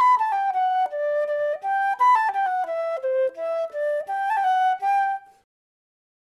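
Solo melody on a wind instrument, one note at a time moving up and down in pitch, ending about five seconds in.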